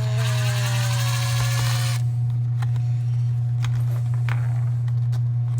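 A power drill backing out a screw: the motor whines, its pitch sinking slightly, then stops abruptly about two seconds in. A few light clicks follow, over a steady low hum.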